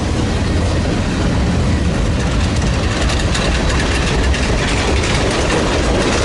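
Freight train rolling past: a loud, steady rumble of rolling cars with the low drone of a diesel locomotive engine.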